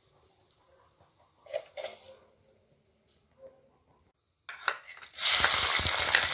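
Chopped shallots dropped into hot coconut oil in an iron kadai, sizzling loudly from about five seconds in. Before that, a few light knocks.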